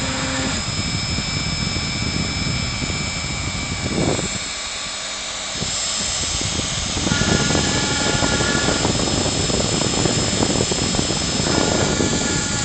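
CNC router engraving wood: the spindle runs with a steady high whine over the cutting noise, and pitched tones from the machine come and go as it moves. The sound eases off briefly about four seconds in, then picks up again.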